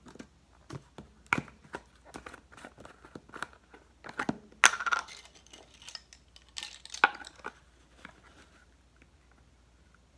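Spice jars and containers being handled on a kitchen cutting board: a string of clicks, taps and short rustles, loudest a little before the middle and again about two-thirds of the way in.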